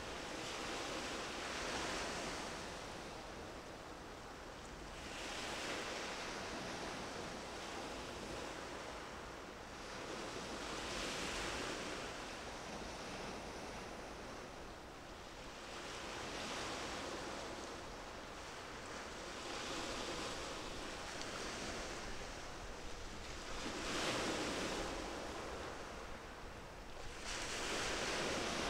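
Small waves washing in, each swell of surf rising and fading every four to six seconds.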